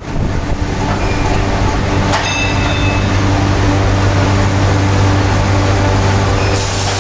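Heavy forging machinery running with a loud, steady low hum. A short metallic knock with a brief ring comes about two seconds in, and a hiss starts near the end.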